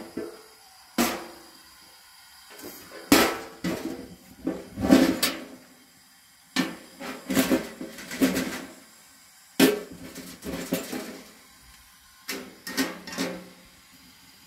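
Metal clanking and scraping: a metal blade knocking and scraping on a domed, perforated sheet-metal bread griddle. The hits ring and come in about five irregular clusters separated by short quiet gaps.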